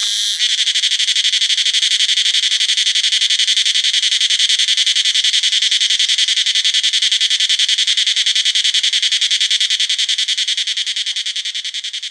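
Cicada song: after a few short pulsed phrases right at the start, a loud, high continuous buzz with a fast, even pulsing, fading out near the end.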